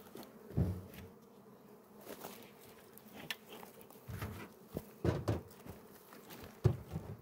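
Honeybees buzzing around an open hive, a faint steady hum, broken by several dull knocks, the loudest near the end.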